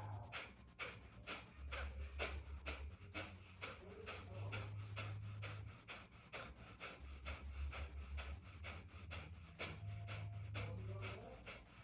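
Kapalabhati breathing: quick, forceful exhales pumped out through the nose with passive inhales between, at a steady rhythm of about two to three breaths a second.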